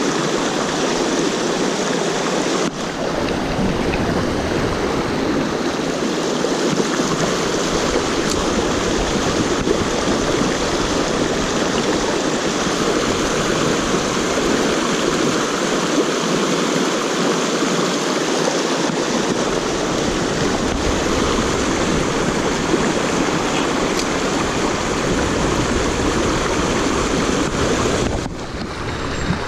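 Mountain stream rushing over rocks, a loud, steady rush of water, with low rumbling at times and a brief dip in level near the end.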